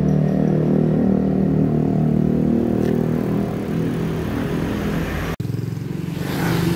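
A motor vehicle engine running close by, a steady hum. After a cut about five seconds in, the hum is weaker and wind noise on the microphone rises near the end.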